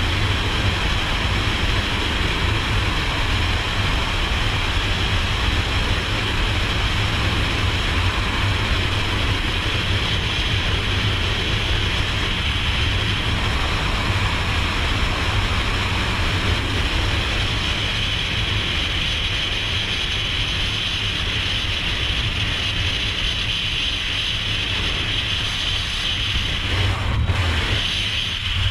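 Loud, steady rush of freefall wind buffeting a camera's microphone, with one brief dip near the end.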